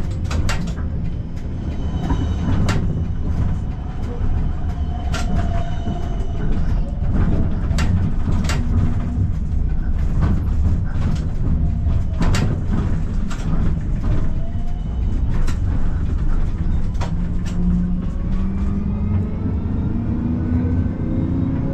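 Combino tram running on street track: a steady low rumble with many sharp clicks from the rails and points. A few brief squealing tones are heard, and near the end a whine rises in pitch as the tram picks up speed.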